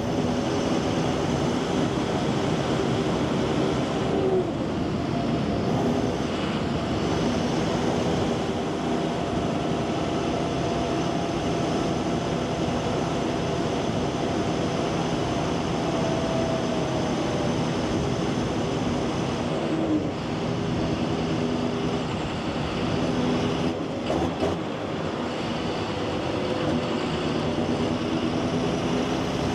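John Deere 7530 tractor's six-cylinder diesel engine running steadily, its pitch dropping briefly several times as the engine speed changes.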